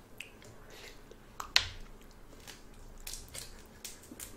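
Shell of large grilled red shrimp cracking as it is bitten and pulled apart by hand, with chewing: scattered sharp clicks and crackles, the loudest about a second and a half in.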